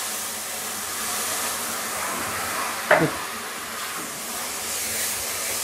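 Water just added to a hot pan of oil and spiced masala, sizzling and hissing steadily as it boils off in steam. One short sharp knock about three seconds in.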